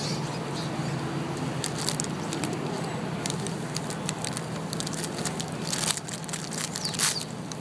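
Paper snack bag crinkling and rustling in irregular crackly bursts as an eastern gray squirrel roots inside it for nuts, the loudest crinkles near the end.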